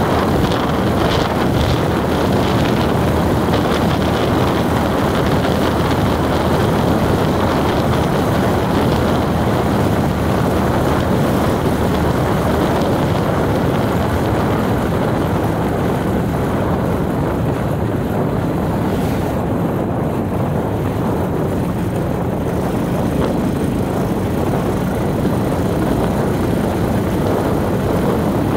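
A vehicle driving along at a steady pace, its engine hum and road noise running evenly.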